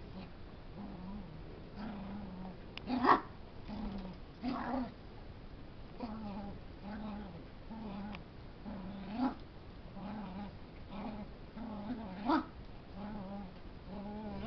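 A puppy making low, drawn-out play noises while tugging on a leash with a bigger dog, about one call a second. Three of them rise into louder, higher cries.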